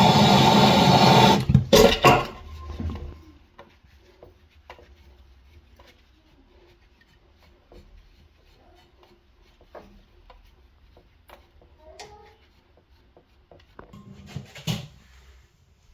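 Music that cuts off about a second and a half in, followed by a couple of knocks and then faint, scattered clicks and light taps, with a louder clatter of knocks near the end.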